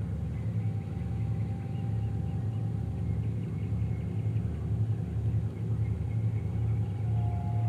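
The 10D100M two-stroke opposed-piston diesel engine of a 2TE10U diesel locomotive running, a steady, pulsing low rumble. A faint high whine sits above it from about half a second in.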